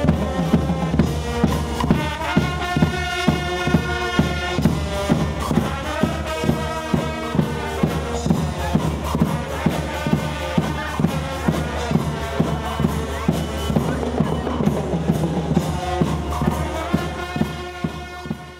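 Music with a steady drum beat and pitched melody tones, fading out near the end.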